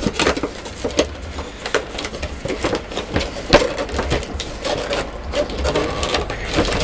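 Packaging being unwrapped by hand, crinkling and rustling with irregular crackles and clicks.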